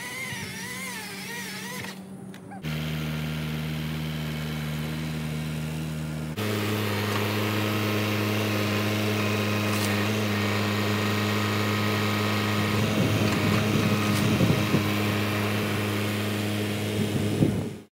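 Kubota MX6000 tractor's diesel engine running steadily while the front-loader grapple lifts and carries a log, its pitch stepping up at a cut about six seconds in. The first two seconds hold a wavering high whine.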